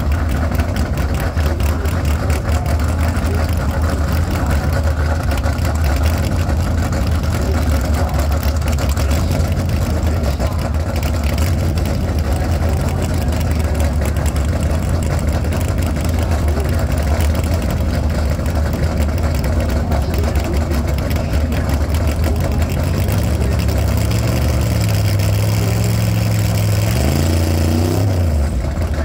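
Drag-race car engines idling at the starting line with a steady low hum. Over the last several seconds one engine's revs step up, then climb sharply near the end as it is brought up on the line for the launch.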